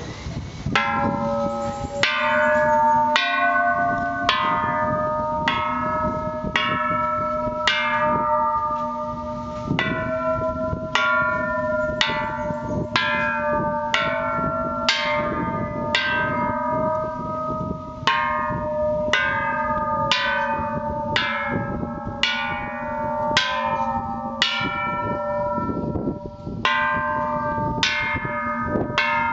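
A row of hanging metal Thai temple bells struck one after another with a wooden stick, roughly once or twice a second. Each bell rings with its own pitch and keeps ringing under the next strike.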